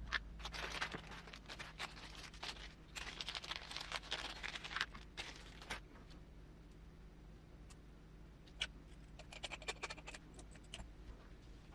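Light clicking and scraping of small hand tools and parts being handled on a workbench, in a few short spells with quieter gaps between.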